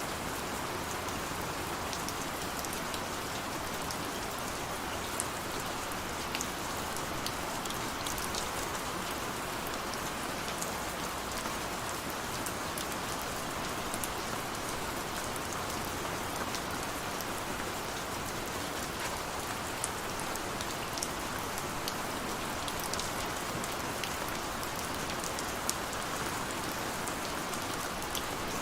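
Steady rain falling, a constant wash with scattered individual drop ticks.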